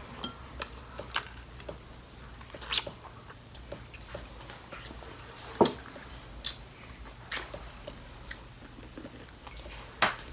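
Eating a seafood boil: scattered sharp cracks, snaps and wet smacking as crawfish shells are broken and the meat is bitten and chewed.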